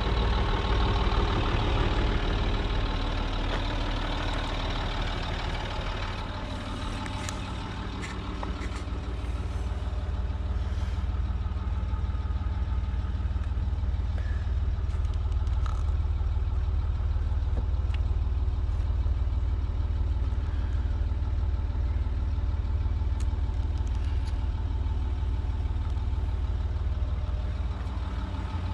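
2007 Land Rover Discovery 3's 2.7-litre TDV6 diesel engine idling steadily.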